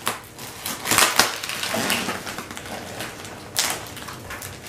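Plastic packaging bag crinkling and rustling in irregular bursts as it is handled and cut open with scissors; the loudest crackle comes about a second in.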